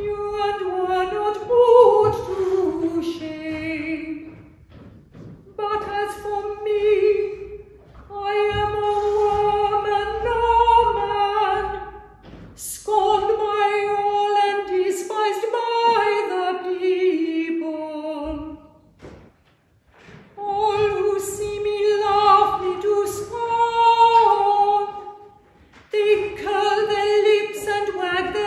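A single unaccompanied voice singing a slow melody in phrases, with short pauses for breath between them.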